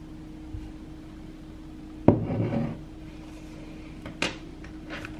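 A ceramic mug is set down on a table with a single sharp clunk about two seconds in, followed by a few lighter knocks and rubbing from things being handled on the desk near the end.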